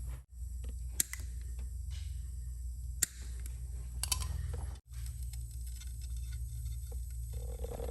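A few sharp clicks and small taps over a steady low hum, cut off abruptly twice.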